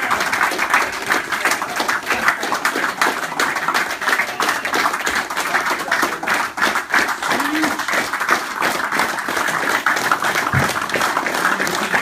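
A small crowd applauding steadily, many hands clapping fast.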